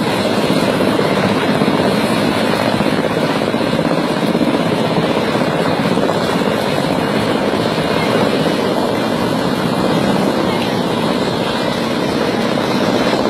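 A Mil Mi-17 transport helicopter hovering low overhead, its rotors and turbine engines making a loud, steady noise that does not change.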